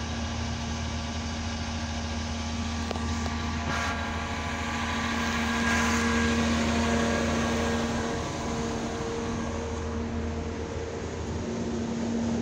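A 2004 NABI 60-BRT articulated CNG city bus idling at a stop: a steady low hum with a few steady whining tones over it, a little louder around the middle.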